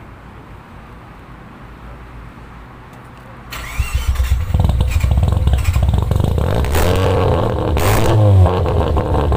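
Mazda RX-7 FD's 13B twin-turbo rotary engine firing up about three and a half seconds in, then running loud through its aftermarket exhaust, with the pitch rising and falling in throttle blips near the end.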